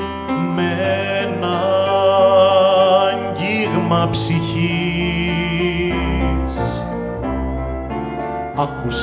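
Slow ballad played live by a small ensemble of piano, violin, flute, guitar, double bass and percussion. A long held melody line with vibrato runs through the middle.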